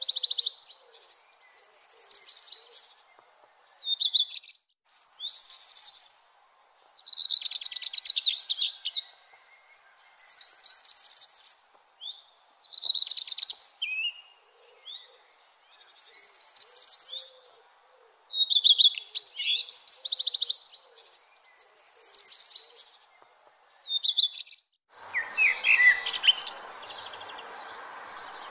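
Songbird singing short, repeated phrases with brief pauses between, some lower and some higher-pitched. About 25 seconds in, a steady hiss of background noise comes in with quicker chirps from other birds.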